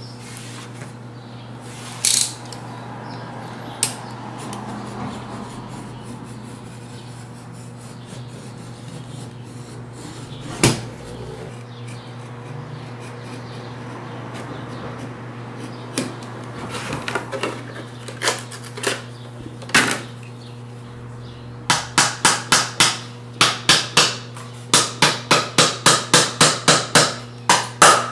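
Quiet bench work: a utility knife cutting a sheet of insole board, with a few isolated knocks. From about three quarters of the way through comes a fast run of sharp, light hammer taps in short bursts of several a second, from lasting pincers striking tacks into the insole board.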